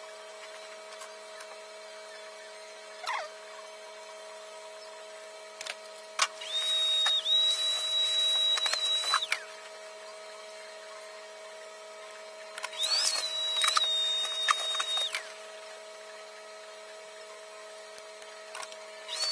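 Large steel tailor's shears cutting through a coat's quilted lining in two long cuts, about 6 and 13 seconds in, each lasting two to three seconds, with a thin high whine running through each cut.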